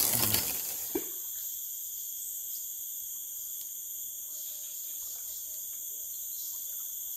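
Steady high-pitched chorus of forest insects, crickets among them, droning without a break. A brief burst of rustling and handling noise comes at the very start, and a short plop about a second in.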